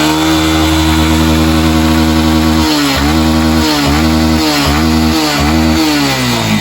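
Small motorcycle engine revved and held at high speed, then blipped down and up about four times before dropping back. It is being revved to check the battery charging voltage after a new voltage rectifier was fitted.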